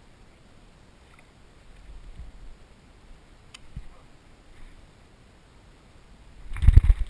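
Paddle and fishing gear being handled in a plastic kayak: a few soft knocks and a click, then a loud cluster of low bumps against the hull near the end.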